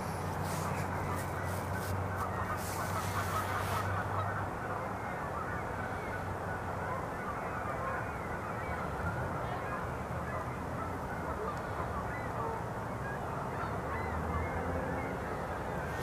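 A steady chorus of many overlapping distant bird calls, over a low steady rumble.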